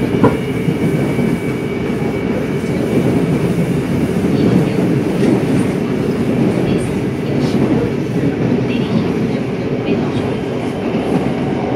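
Seoul Metro Line 4 subway train running at speed, heard from inside the carriage: a steady rumble of wheels and running gear on the rails, with faint occasional clicks.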